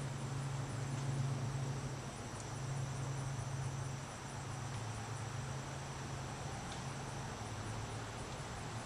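Crickets chirping in a high, evenly pulsing trill over a steady low hum.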